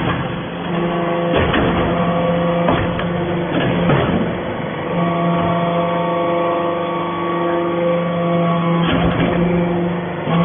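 Hydraulic aluminium-chips baler running: a steady machine hum from its hydraulic power unit, broken by a few clunks and knocks from the press.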